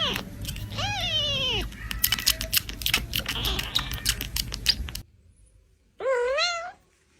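A domestic cat meowing: two drawn-out meows in the first two seconds and a third, wavering one about six seconds in. Between them comes a stretch of clattering and scuffling knocks that stops abruptly about five seconds in.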